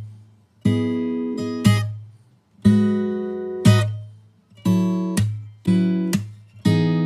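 Intro music: acoustic guitar strumming chords about once a second, each chord ringing out and fading before the next stroke, the strokes coming a little closer together near the end.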